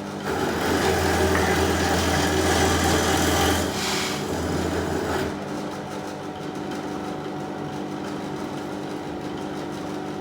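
Pillar drill running with a steady motor hum; its bit cuts into timber twice in the first five seconds, louder and rougher, then the drill spins on freely.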